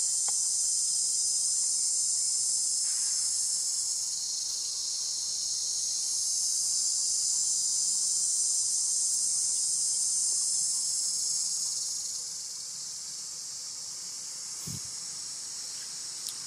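Steady, high-pitched chorus of insects, easing off to a lower level about twelve seconds in.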